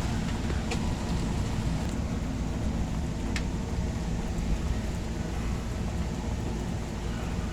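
Steady noise of rain and wind in a passing thunderstorm, mostly a low rumble, with a couple of brief sharp ticks.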